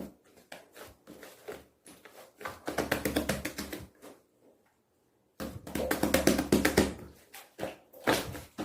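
Hands kneading green liquid slime mixed with shaving foam, giving wet, sticky rapid clicking and popping in two longer stretches, with a short full silence in the middle.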